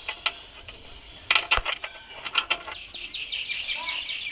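Small birds chirping in a quick run of short high notes, with a few sharp clicks and knocks about a second and a half in.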